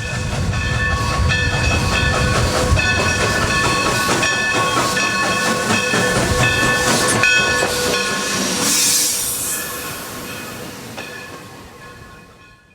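A train running, with a low rumble and several steady high-pitched tones that sound on and off. A burst of hiss comes about nine seconds in, and the sound fades out near the end.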